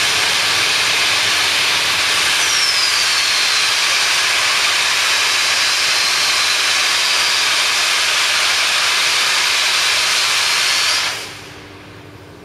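Peppercorn A1 Pacific steam locomotive 60163 Tornado blowing off steam: a loud, steady hiss with a faint whine in it, cutting off suddenly about eleven seconds in.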